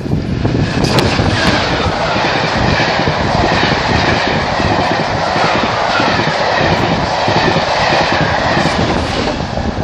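Class 66 diesel locomotive passing fast on the through line close by, then the rush and wheel clatter of its Mk2 coaches going past at speed.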